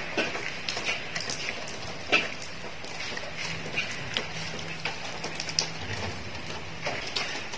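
Scattered light clicks and scuffs of puppies' claws tapping on a concrete floor as they walk about, the sharpest tap about two seconds in. A faint steady low hum is underneath through the middle.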